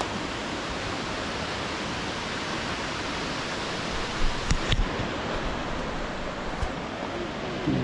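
Steady, even rushing roar of Jog Falls, a tall multi-stream waterfall heard across its gorge. A few brief knocks come about halfway through.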